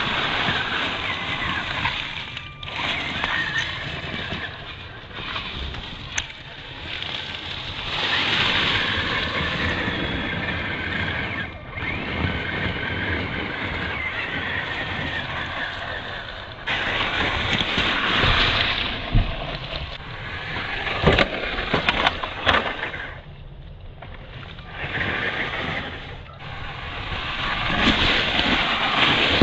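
WLtoys K949 RC off-road truck driving over dry leaves and pine needles: its electric drivetrain running, rising and falling with the throttle, over a rough crunching of tyres in the leaf litter. Several sharp knocks about 19 to 22 seconds in, as the truck bounces over the ground.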